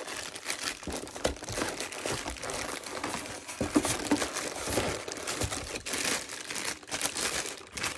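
Packaging crinkling and rustling with irregular small crackles as it is handled and pulled away.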